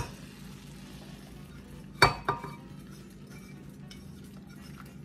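Hot browned butter poured from a metal saucepan into a glass bowl, the pan and spoon clinking against the bowl: a sharp clink at the start, then two sharp knocks close together about two seconds in, with a few light ticks after, over a steady low hum.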